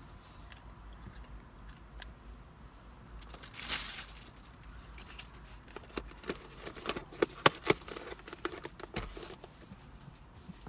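A clear plastic takeout container being handled: a brief rustle a few seconds in, then a run of sharp plastic clicks and snaps about two-thirds of the way through as the lid is pressed shut.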